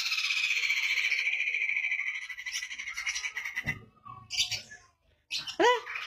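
Lovebird chattering in one long, fast, continuous high trill that runs for about three and a half seconds, the extended chatter that lovebird keepers prize in a 'gacor' bird. After it stops there is a sharp click, and then a single loud swooping call near the end.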